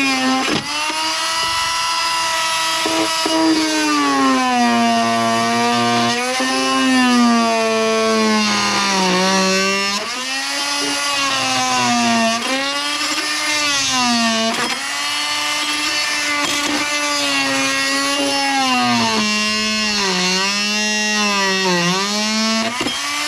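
Corded oscillating multi-tool cutting through a tab on a radiator fan shroud. Its motor whine sags in pitch and recovers again and again as the blade bites and eases off under load.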